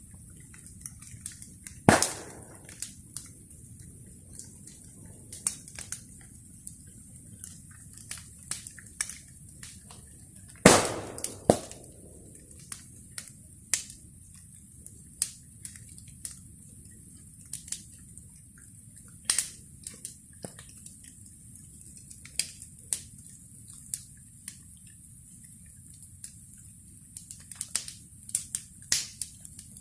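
Wood fire crackling, with irregular small snaps over a low steady background and two loud sharp pops, about two seconds in and about eleven seconds in.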